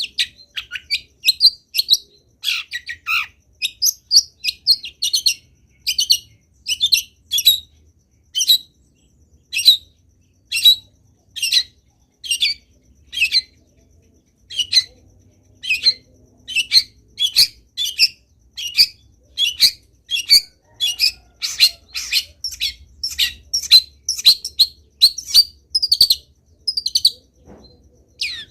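Long-tailed shrike (cendet) singing non-stop: a fast string of short, sharp chirping notes, about two a second, packed with varied phrases.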